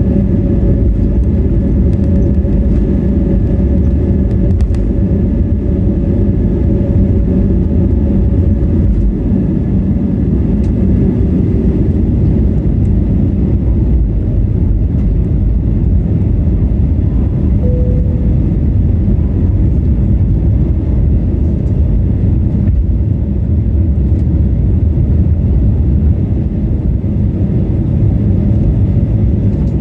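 Steady, loud low rumble inside the cabin of an Airbus A320neo with Pratt & Whitney PW1100G geared turbofans, heard from a window seat as the airliner moves on the ground or climbs out. A faint steady hum rides on top and fades about ten seconds in.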